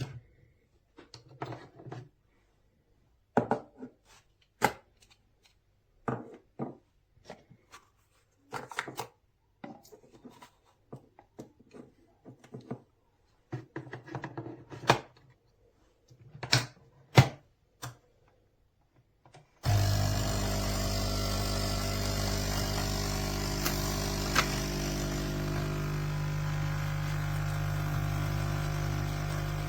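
Clicks and knocks of a pod coffee machine being handled and loaded, then, about twenty seconds in, its pump starts abruptly and runs with a steady hum.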